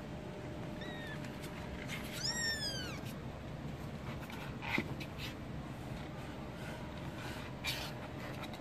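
Kittens mewing: a faint short mew about a second in, then a louder, high-pitched mew that rises and falls around two seconds in. Two brief knocks come later.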